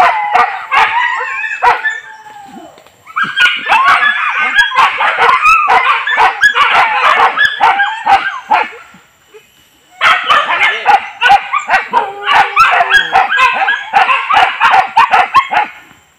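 Several leashed boar-hunting dogs yelping and whining in three long bouts, with short lulls about two seconds in and again around nine seconds.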